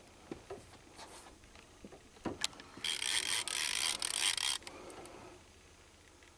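Conventional big-game fishing reel's drag buzzing for almost two seconds about three seconds in, then cutting off, as a hooked giant freshwater stingray pulls line off toward the bottom. A few light clicks and knocks from the rod and boat come before it.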